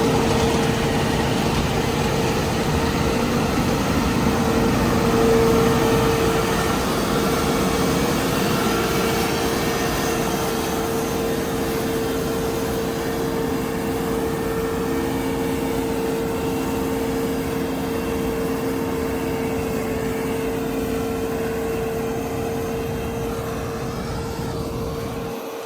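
John Deere T670 combine harvester with its 625R header, running while harvesting grain: a dense mechanical drone with a steady whine held on one pitch, slowly getting quieter.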